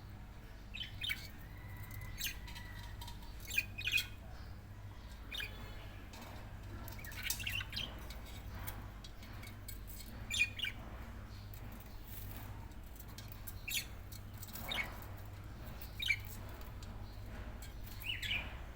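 Budgerigar giving short chirps and squawks every second or two, over a steady low hum.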